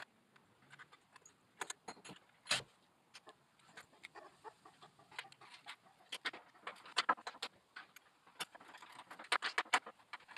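Small steel hardware for a caster (bolts, fender washers and lock washers) clinking and clicking as it is picked up and set down on a plywood board while a swivel caster is positioned. The sharp clinks are scattered at first and come in quicker runs in the second half.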